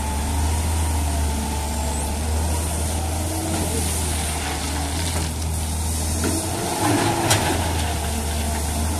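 Samsung hydraulic excavator's diesel engine running steadily under load as it digs soil, with a couple of short sharp knocks, about six and seven seconds in.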